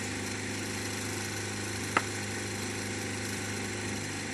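A steady low machine hum, like an idling engine, with one sharp crack about two seconds in, a cricket bat striking the ball in the nets.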